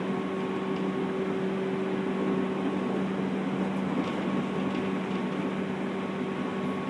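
Interior running noise of a JR 211 series electric multiple unit, heard inside the motor car MoHa 210-3025: a steady rolling rumble with a constant hum from the running gear, the train holding a steady speed.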